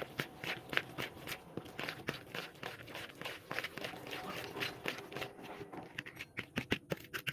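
A spoon stirring a thick egg batter with chopped almonds and coconut in a bowl: irregular scraping and clicking strokes, several a second.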